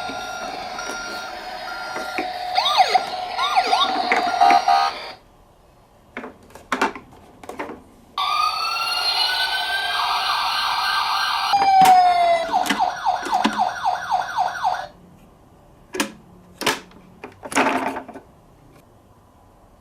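Electronic emergency-vehicle sirens, several overlapping wails that cut off about five seconds in. After a pause with a few sharp clicks, another siren rises, then a fast yelp pulses about four times a second, followed by scattered clicks.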